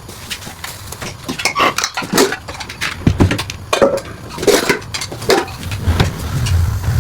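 Dishes and utensils clattering in a kitchen: a string of separate knocks and clinks, with a low hum coming in near the end.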